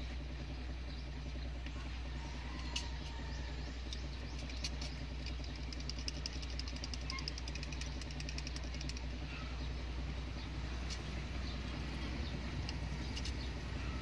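A steady low hum throughout, with scattered small ticks and a quick run of fine clicks about six to nine seconds in, as old tint film is picked with a cutter and peeled off a wet car door window.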